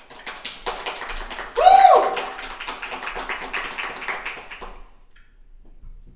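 A small group clapping for about five seconds, with a single rising voice whoop about one and a half seconds in, the loudest moment.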